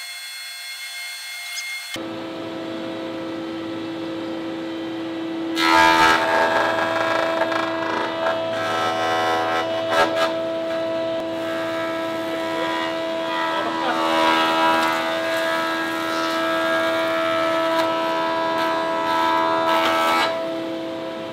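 A Delta RC51 20-inch four-knife thickness planer running with a steady whine. About five and a half seconds in, the cutterhead bites into a wide beech slab, and a much louder, rough cutting noise goes on for about fifteen seconds. It drops back near the end as the board clears the knives.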